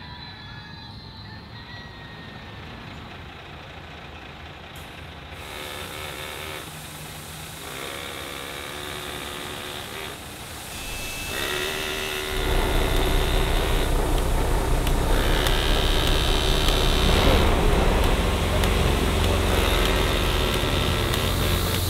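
Diesel engines of old school buses running at idle. About twelve seconds in, a much louder, steady engine rumble starts close by and holds.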